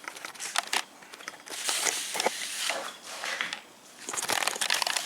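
Rustling, scraping and clicking handling noises as the camera is moved in for a close-up, in irregular bursts with the loudest stretches around the middle and near the end.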